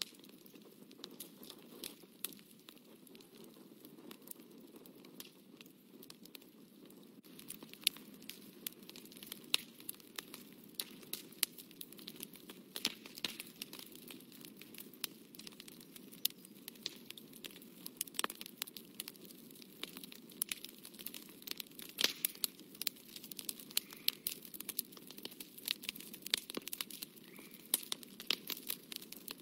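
A fine brush dabbing and scratching on watercolour paper: many light, irregular ticks and scrapes, growing busier after about seven seconds. Near the end, a paper tissue is pressed onto the paper, crinkling.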